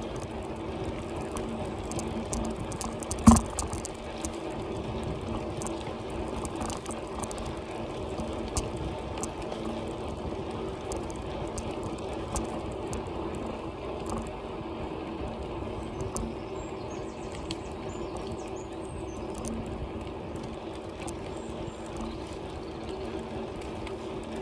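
Bicycle riding along a tarmac path: steady tyre and drivetrain noise with a low hum and scattered small ticks, and one sharp knock about three seconds in.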